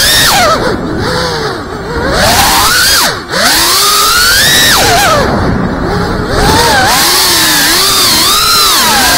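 Ducted propellers and brushless motors of a GEPRC Cinelog 35 cinewhoop whining, heard through the onboard camera's microphone, the pitch swooping up and down as the throttle changes. The whine drops and quiets twice, about one and five seconds in, with a brief cut near three seconds.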